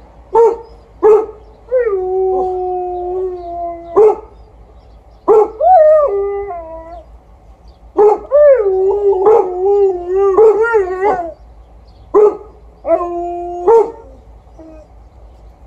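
A Golden Retriever barking in single sharp barks, with an Alaskan Malamute howling along in four long, wavering calls between them.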